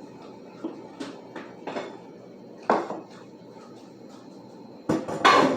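Pots and kitchenware clattering: a few light knocks spaced through the first three seconds, then a louder, longer clatter near the end.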